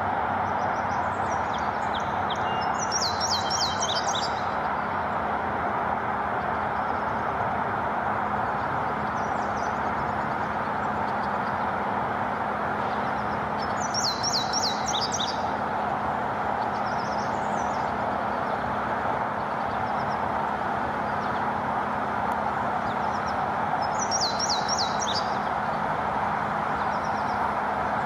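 Male indigo bunting singing three songs about ten seconds apart, each a quick run of high, sharp notes lasting about two seconds, over a steady rushing background noise.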